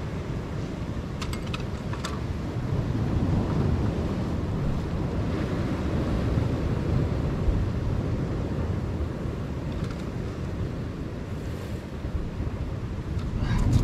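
Ocean surf washing and breaking against a rocky shoreline, with wind buffeting the microphone, a steady low rushing.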